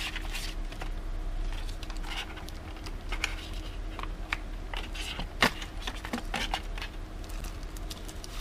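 Unboxing handling of a small cardboard SSD box: the flap is opened and the wrapped 2.5-inch SSD is slid out, giving irregular rustling and crinkling of the packaging with scattered clicks. There is one sharp click about five seconds in, over a faint steady hum.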